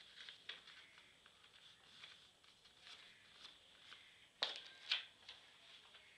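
Faint rustling of a sheet of paper being lifted, shaken and folded on a wooden board, with two louder crinkles about four and a half and five seconds in.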